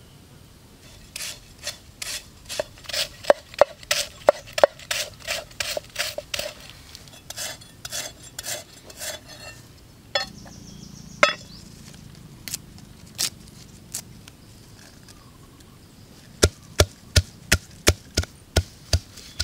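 Knife chopping on a wooden cutting board. There is a quick run of strokes, two or three a second, then a few scattered strokes. Near the end come heavier, evenly spaced chops, about three a second.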